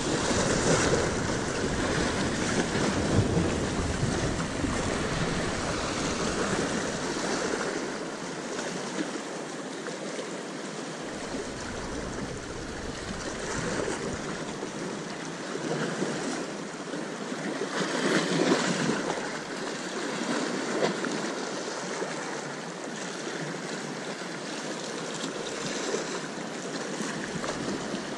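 Sea waves surging and washing, swelling and fading several times and loudest about two thirds of the way in, with wind rumbling on the microphone that comes and goes, strongest in the first few seconds.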